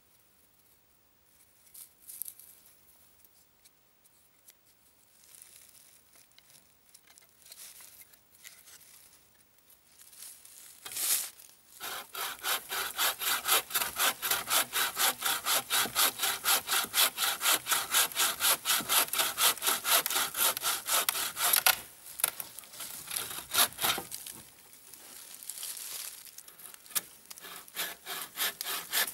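Wooden-frame bushcraft bucksaw cutting through a log in quick, regular back-and-forth strokes. The sawing starts after about ten seconds of faint scattered sounds, breaks off briefly two-thirds of the way in, then resumes more lightly.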